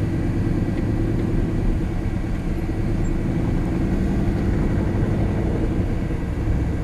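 Lifted Chevy Silverado pickup driving, its engine and drivetrain running in a steady low drone with no change in pitch or level.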